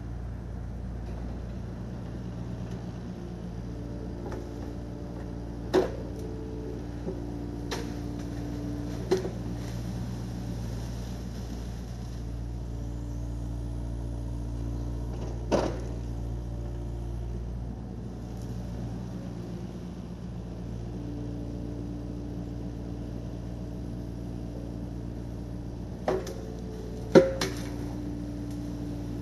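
Yanmar SV40 mini excavator's diesel engine running steadily, with a higher whine rising in and out a few times as the machine works. Half a dozen sharp knocks or cracks are scattered through it, the loudest near the end.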